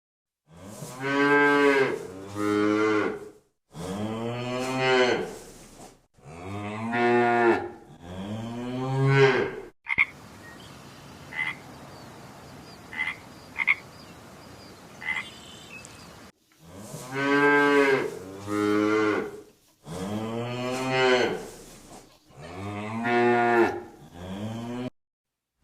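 Cows mooing, a series of long low calls that bend in pitch, some in quick pairs. In the middle comes a few-second stretch of faint background noise with a few short high chirps.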